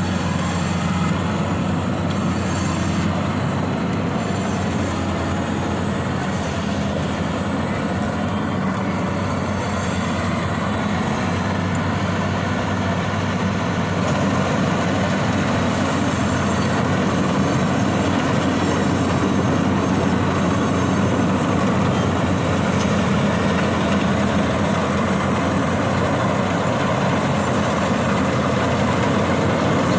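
Rice combine harvester running steadily, its engine and machinery droning without a break, growing slightly louder about halfway through.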